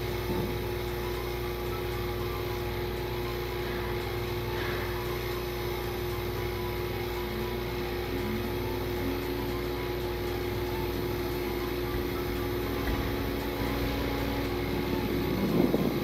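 Arc melting furnace running while its tungsten-electrode arc melts titanium in inert gas: a steady electrical hum and buzz with a held tone. A second, lower tone joins about halfway through.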